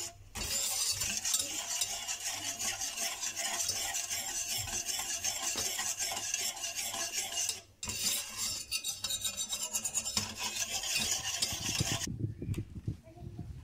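Metal wire whisk beating runny chocolate batter in an enamel bowl: fast, steady strokes scraping and clicking against the bowl, broken by two short pauses, one right at the start and one a little past halfway. The whisking stops about twelve seconds in.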